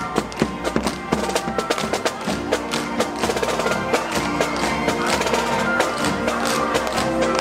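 Upbeat music with a quick, steady percussive beat; held notes join in about two seconds in.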